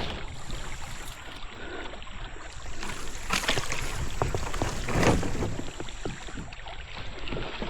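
Kayak paddle strokes dipping and splashing in the water, with two louder swooshes a few seconds in.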